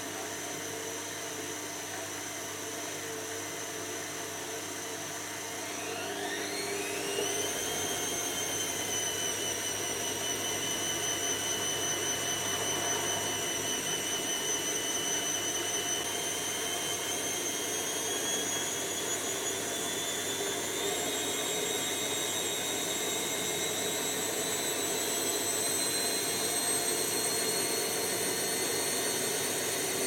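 Beko WM5100S front-loading washing machine with its drum speeding up into a spin. The motor whine rises sharply about six seconds in, then holds and climbs slowly, stepping up once more near the end, over the steady rush of the turning drum.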